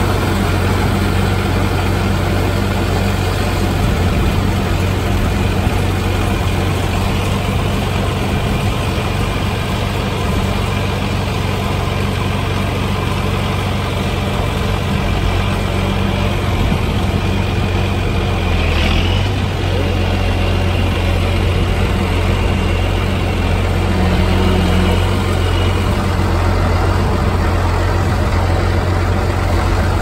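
Allis-Chalmers 7030 tractor's six-cylinder diesel running steadily under load, pulling a John Deere 566 round baler as it picks up hay.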